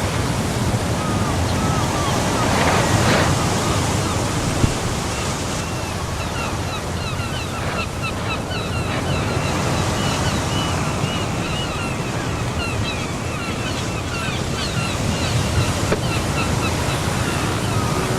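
Steady outdoor noise of wind buffeting the microphone at a pond in light spring rain, with many short, high chirps through most of it and a single small click about five seconds in.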